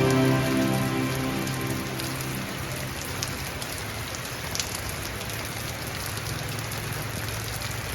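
Steady rain falling, an even hiss with scattered sharp drips. Soft music fades out over the first couple of seconds.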